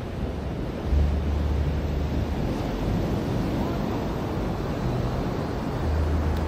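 Ocean surf washing onto a beach: a steady rush of waves, with wind buffeting the microphone in low rumbles about a second in and again near the end.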